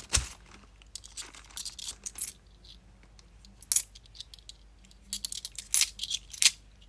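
Bimetallic £2 coins clinking against one another as a stack is thumbed through in the hand, one coin slid off at a time. Sharp little clinks come in irregular clusters with short pauses between them.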